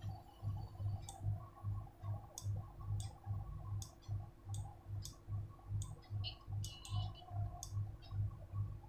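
Kitchen knife peeling a ripe mango: short sharp clicks, about a dozen at uneven intervals, as the blade cuts through the skin. Underneath, a faint low throb repeats steadily about two and a half times a second.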